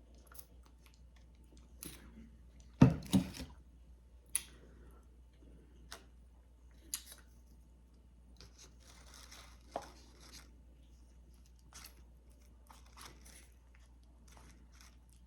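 Close-miked eating of tortilla chips with dip: scattered crunches, crackles and mouth clicks, with a louder thump about three seconds in.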